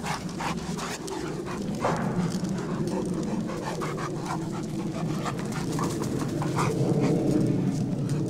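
Two dogs, a Leonberger and a Bernese mountain dog, play-fighting: short, irregular grunts and mouthing sounds, thinning out near the end, over a steady low rumble.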